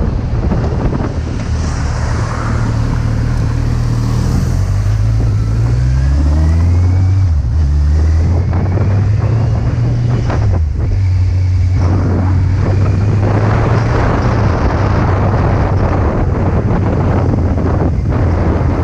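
Kawasaki Z800 inline-four engine running under way, its note climbing through the middle and then dropping sharply about eleven seconds in before settling steady. Heavy wind noise on the microphone covers much of the sound.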